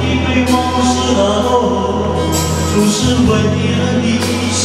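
Mandarin pop ballad: a man singing into a handheld microphone over a backing track with a steady bass and cymbal crashes about every two seconds.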